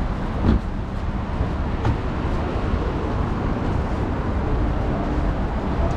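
Street ambience with steady road-traffic noise from a busy street, with a short thump about half a second in.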